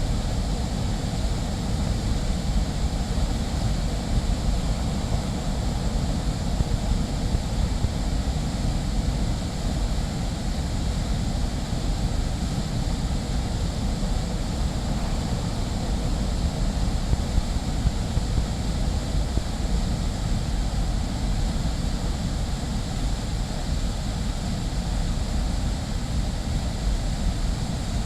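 Ayutsubo Falls, a waterfall, pouring with a steady, even rushing sound of falling water.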